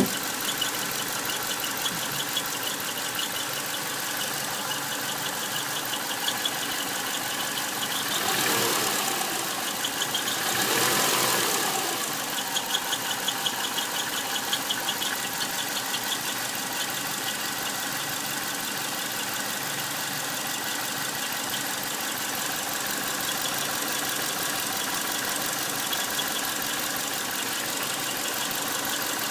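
2001 Subaru Outback's EJ251 2.5-litre flat-four idling with a fast, rhythmic high squeal from the area of the transmission flange, with two brief louder swells about eight and eleven seconds in. The owner has ruled out the accessories, belts, tensioners and release bearing, and suspects crankshaft bearing damage.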